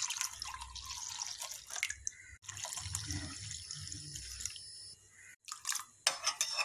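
Milk poured from a glass tumbler into a glass bowl, splashing and trickling steadily. Near the end a metal spoon stirs and clinks against the glass bowl.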